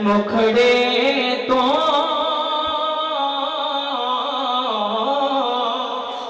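A man singing a devotional kalam into a microphone, drawing out long, wavering notes with no clear words, the melody dipping down near the end.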